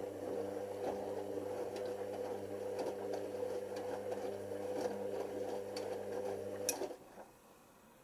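Hoover Nextra HNL6166 washing machine tumbling a load of bedding in its prewash: a steady motor hum as the drum turns, with light clicks and swishing from the wet load. The hum stops suddenly about seven seconds in, just after a sharp click, as the drum comes to rest between turns.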